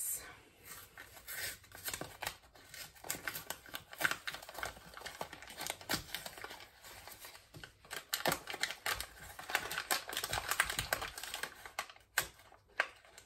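Jiffy corn muffin mix package being picked and torn open by hand: irregular scratching, crinkling and small tearing sounds of cardboard and paper, as the package resists opening.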